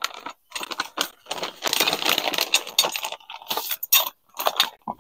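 Plastic parts bag crinkling as it is handled, with small metal hardware clinking inside, in irregular bursts.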